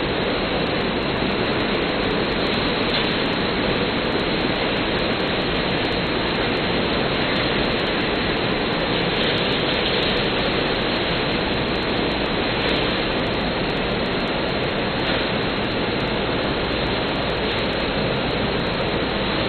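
Steady, even roar of a running factory production line's machinery, with no clear rhythm and a few faint ticks.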